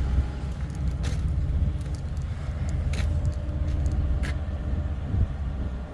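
A motor vehicle engine running steadily with a low rumble, with a few faint clicks.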